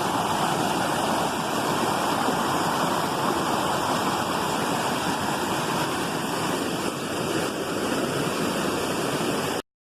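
Waterfall: falling water making a steady, even rush that cuts off abruptly near the end.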